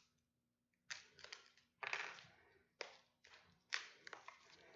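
Plastic packaging being handled: about five short crinkles and taps, each dying away quickly, the first about a second in.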